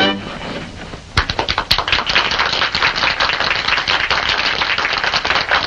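A song ends at the start, and from about a second in an audience applauds: a dense, irregular clatter of many hands clapping.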